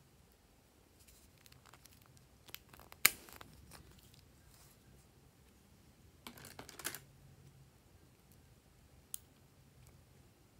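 Makeup packaging handled by hand: a glittery eyeshadow palette compact and a lipstick tube. Small clicks and rustles, with one sharp click about three seconds in, a quick run of scraping clicks a little past the middle, and a single click near the end.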